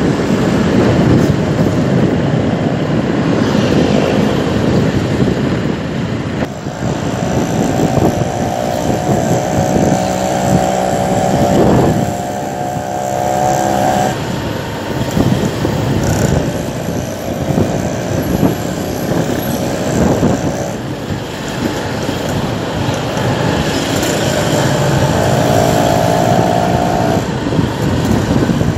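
Riding a motor scooter in traffic: wind buffets the microphone over the scooter's engine and the road noise. A steady engine hum comes through for several seconds at a time, three times over.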